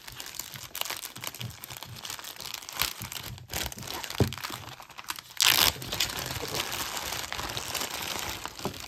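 Packaging crinkling and rustling as a jewelry piece is unwrapped by hand, with a louder rustle about five and a half seconds in.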